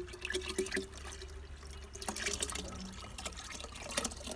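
Homemade plum syrup pouring from a pot into a glass jar, trickling and splashing continuously, with many small clicks scattered through it.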